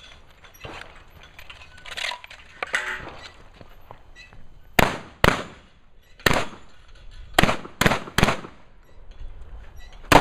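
Benelli M1 Super 90 semi-automatic shotgun firing seven shots, starting almost five seconds in: two close together, a single, a quick string of three, and one more near the end. Before the shots there are a few seconds of quieter, irregular clattering.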